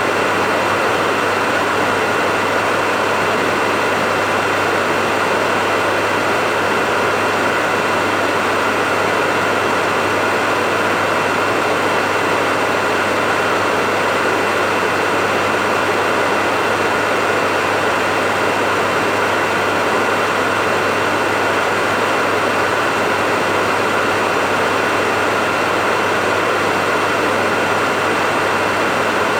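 Hair dryer running steadily: an even blowing hiss with a low motor hum and a thin, high whine, unchanging throughout.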